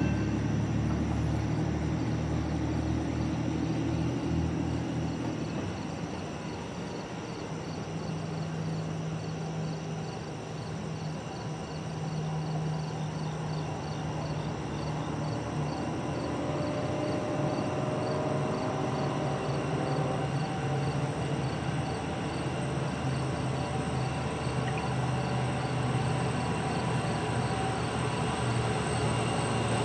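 Train rolling past: a steady rumble of wheels on rail with a low engine drone, easing a little in the middle and building again.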